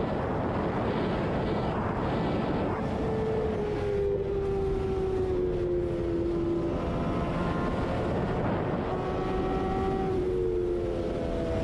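Yamaha sport motorcycle's engine running at highway speed under a steady rush of wind noise. The engine note sinks slowly through the middle, then jumps higher about ten seconds in.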